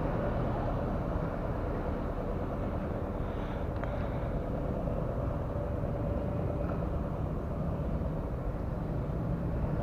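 Steady low rumble of motor traffic with a faint even hum, unchanging throughout.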